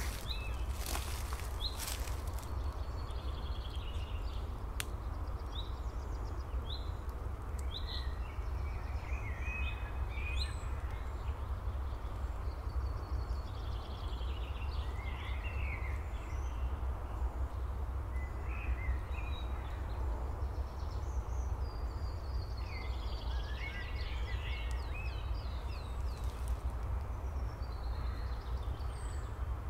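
Outdoor woodland ambience: several small birds chirping and trilling at intervals over a steady low rumble, with a few sharp clicks in the first couple of seconds.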